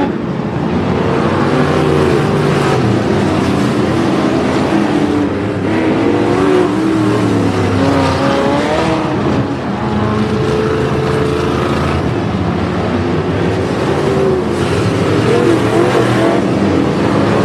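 Several figure-8 race cars' engines running and revving around a dirt track, their overlapping engine notes rising and falling as they race.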